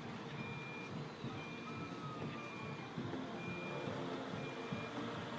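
Backup alarm of an earth-moving machine beeping steadily, about one beep a second, over a low rumble.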